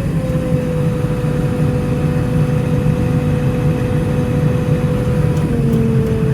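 Farm machine engine running steadily, with a steady whine over the rumble that drops slightly in pitch about five and a half seconds in.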